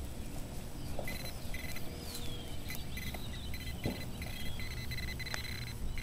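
A handheld metal-detecting pinpointer probing a dug hole for the target, its steady high tone switching on and off repeatedly as it is moved against the soil. Under it there is soft scraping and handling noise, with a few knocks.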